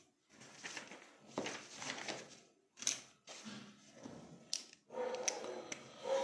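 Handling noise at a desk: soft rustling with a few short, sharp clicks as a pen is brought to the paper to write.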